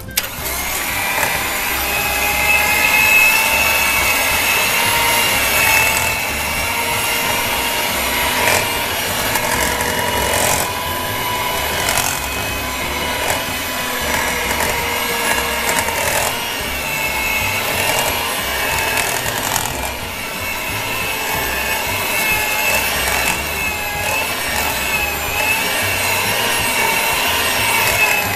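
Philips electric hand mixer running at low speed, a steady motor whine. Its beaters churn thick choux pastry dough with eggs and scrape against a stainless steel bowl.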